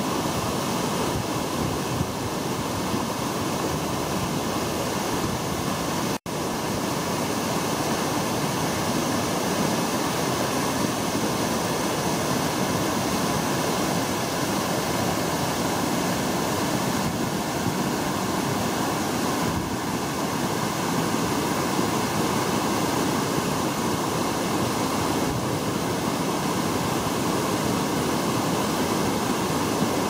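A waterfall and the cascading mountain stream below it, water rushing steadily over rocks. The sound drops out for an instant about six seconds in.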